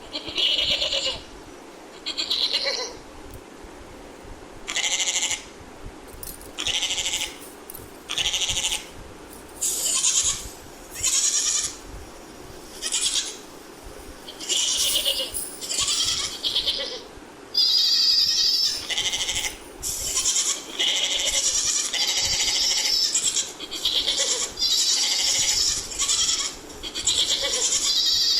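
Goat bleating over and over, a call every second or so, the calls coming closer together and running longer in the second half.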